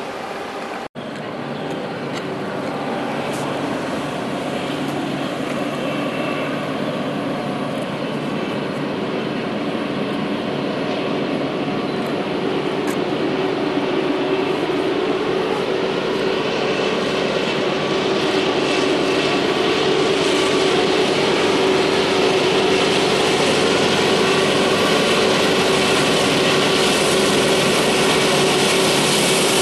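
Diesel locomotives of an approaching Norfolk Southern freight train: a steady engine drone with a held tone, growing gradually louder as the train nears.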